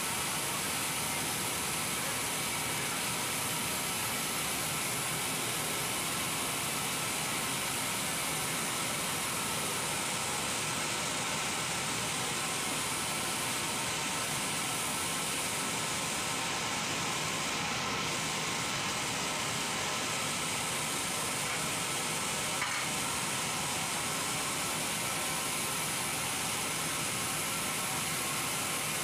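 Heavy machinery giving a steady, even hiss with faint steady whining tones beneath it, and a single small click about three-quarters of the way through.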